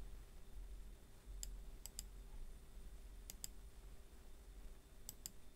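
Computer mouse clicking: about seven short, sharp clicks, several in quick pairs, over a low steady hum.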